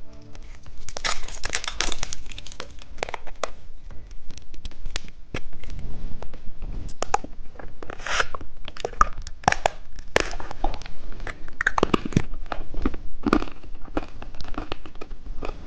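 Plastic wrapper of a microphone-shaped candy being torn open and crinkled, a dense run of irregular crackles and crunches.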